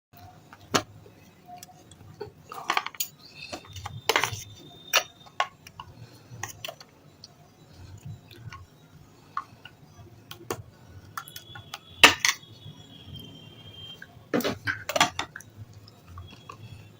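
Red sale stone chips cracking and crunching, with clinks of the hard pieces. Sharp separate cracks come a second or more apart, the loudest about twelve seconds in and a quick cluster near fifteen seconds.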